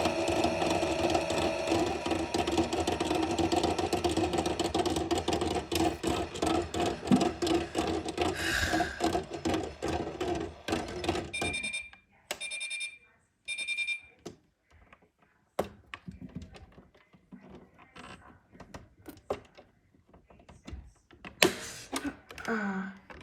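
Toy washing machine's small electric motor whirring steadily, then cutting off about eleven seconds in, followed by three short electronic beeps signalling the end of its cycle. After that, only a few light clicks and handling knocks, one of them sharp.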